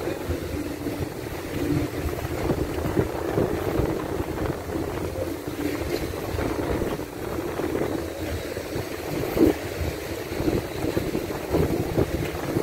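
Wind buffeting the phone's microphone in uneven gusts, a rough low rumble over the wash of a choppy sea.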